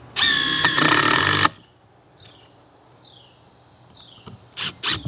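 DeWalt DCF787 20-volt brushless compact impact driver with a T25 bit driving a 3-inch screw into treated 2x8 lumber. It runs for about a second and a half, then stops, and a couple of short clicks follow near the end.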